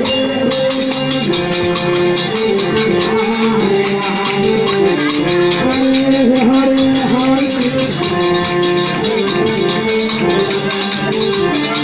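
Bhajan (Hindu devotional song) music: a held, stepping melody line over a steady rattling percussion beat.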